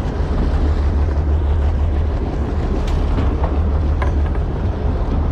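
Steady low rumble of wind buffeting the microphone on a fishing boat at sea, with a few faint ticks.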